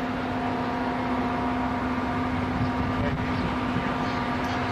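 Amtrak Genesis diesel locomotive approaching, its engine making a steady hum over a low rumble.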